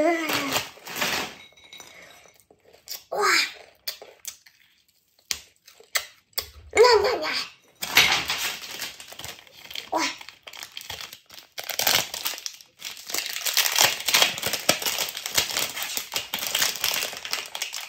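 A plastic sweet wrapper crinkling and rustling densely as it is handled and opened, through the second half. Before that come a few short, wordless vocal sounds that glide in pitch.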